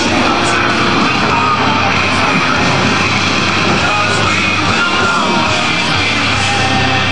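Loud rock music playing over loudspeakers, mixed with the noise of the A-10 jet's engines flying the display.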